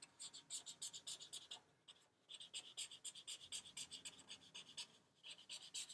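Felt-tip marker scratching on paper in quick short zigzag strokes while drawing grass, a few strokes a second, with a brief pause about two seconds in and another near the end.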